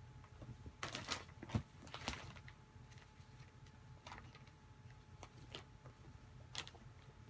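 Two cats play-fighting on a bed: soft rustling and scuffling of paws and bodies on the bedding, with short scratchy clicks. The rustles are busiest from about one to two seconds in, with a few more near the middle and near the end.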